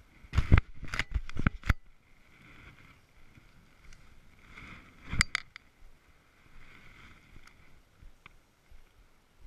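A quick run of loud knocks and rubbing on the body-worn camera as the angler handles the rod, then a baitcasting reel being cranked in short spells, a soft whir, with one more sharp knock about five seconds in.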